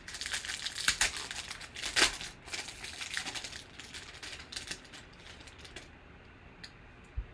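Foil wrapper of a Panini Certified football card pack being torn open and crinkled by hand. The crackling is loudest in the first two seconds and dies away about six seconds in.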